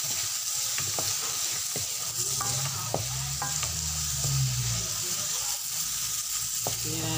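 Shrimps frying and sizzling steadily in butter and oil in a metal pan while a spatula stirs them, scraping and clicking against the pan several times.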